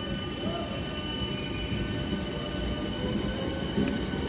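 Passenger train moving along the tracks, a low rumble that grows gradually louder, with a faint, slightly rising whine.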